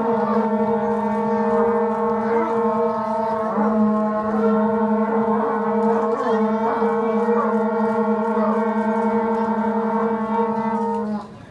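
A horn blown on one long, steady low note that stops just before the end.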